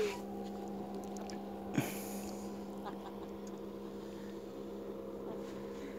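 A steady low hum, with one short thump and a brief splash about two seconds in as a caught fish is dropped back into the water.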